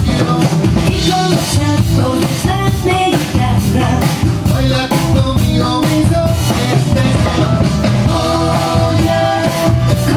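Drum kit playing a steady beat with cymbals, under a sustained melody line.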